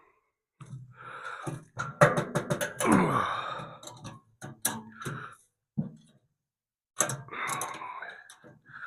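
Ratchet strap being cranked tight over a bent piece of steel to pull it back into line: irregular clicks and clunks, with a creak that falls in pitch about three seconds in.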